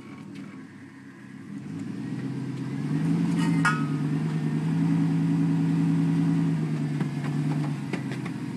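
Pickup truck engine running at low speed, its revs rising about two to three seconds in, holding steady, then easing off near the end, as the truck is eased onto a split-rim tire to press it down. A couple of short metallic clinks a few seconds in.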